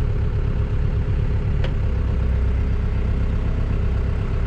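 Engine running at a steady idle, with one sharp click about a second and a half in, after which its low drone grows heavier.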